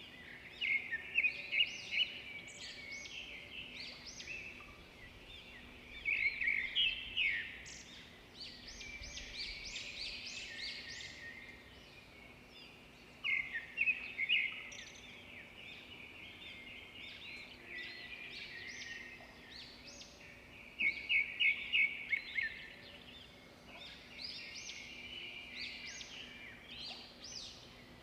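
Birds chirping in clusters of quick, high notes, one flurry every few seconds, over a faint steady hum.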